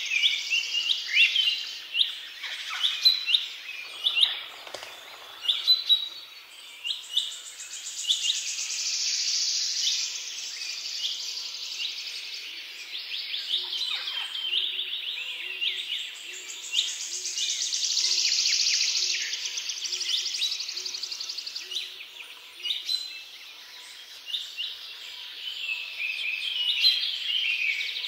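Birdsong: many small birds chirping and calling in quick short notes, over a high hissing chorus that swells and fades every several seconds.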